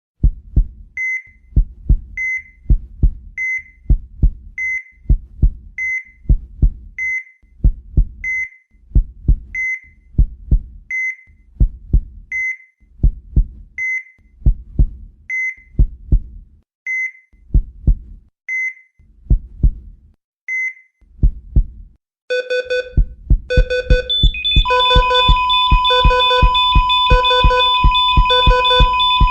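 Heart-monitor sound effect: a heartbeat with a short beep on each beat, about one beat every 1.2 seconds. After a brief gap about 22 seconds in, the heartbeat speeds up under a faster, lower repeating alarm beep, and a couple of seconds later a steady alarm tone joins it, signalling the monitor's failure alarm.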